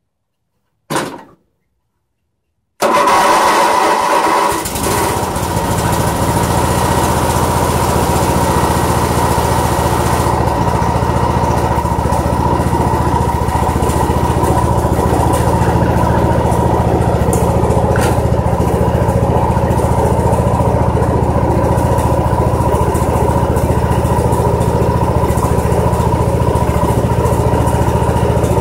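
Ranch King garden tractor's freshly swapped engine on a cold start: a short burst about a second in, then about three seconds in it catches and settles into steady running.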